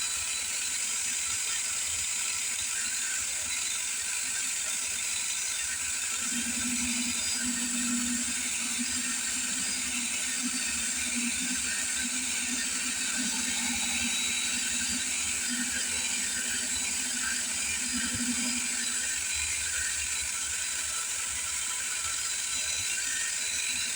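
Cordless drill motor driving a homemade micro metal lathe, running steadily with a high whine and mechanical whir. A lower hum joins from about six seconds in until near twenty seconds.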